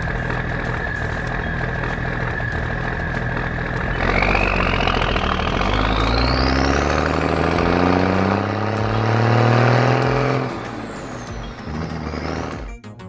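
Sound effect of a heavy truck engine running under a steady high tone, then revving up from about four seconds in as the truck accelerates away. Its pitch climbs with a rising whine for about six seconds, then the engine cuts off and the whine falls away.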